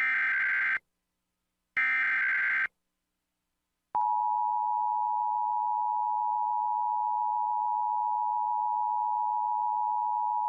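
Emergency Alert System tones: the last two of three short SAME header data bursts, each just under a second long with a pause between, then about four seconds in the steady two-note EAS attention tone starts and holds.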